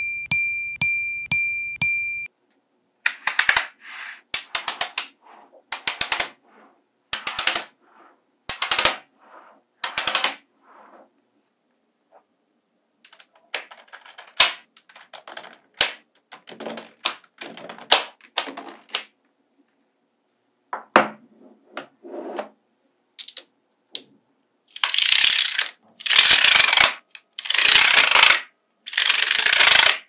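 Small magnetic balls clicking and clattering as they snap onto one another: scattered clusters of sharp clicks, then longer rattling runs near the end as whole rows go on. The first two seconds hold a ringing chime over evenly spaced ticks.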